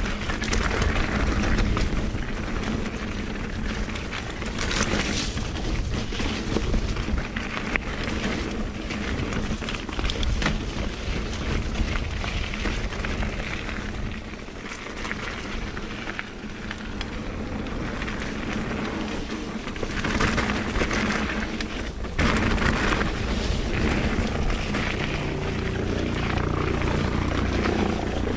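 Wind rushing over a helmet-mounted GoPro's microphone and mountain bike tyres rumbling along a dirt trail at speed, with a few sharp knocks from the bike.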